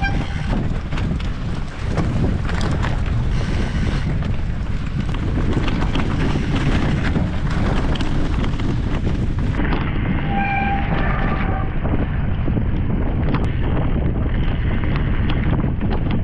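Mountain bike ridden fast over a dirt forest trail: wind buffeting the camera microphone and a steady rumble of tyres and frame, with constant small rattles and knocks from the bike over rough ground. About ten seconds in, a short high squeal sounds for a second or so.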